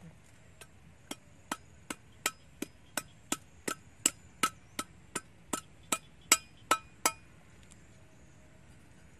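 A tool striking something hard over and over, like chopping or hammering: about seventeen sharp hits at an even pace of roughly two and a half a second, each with a slight ring. The hits stop about seven seconds in.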